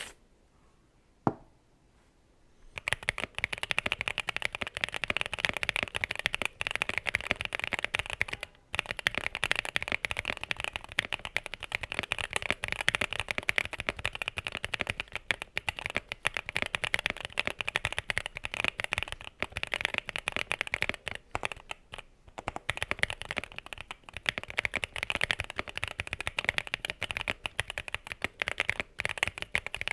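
Mechanical keyboard with Designer Studio Starry linear switches being typed on fast and continuously, a dense run of crunchy, clacky keystrokes that starts about three seconds in after a single click, with a couple of brief pauses.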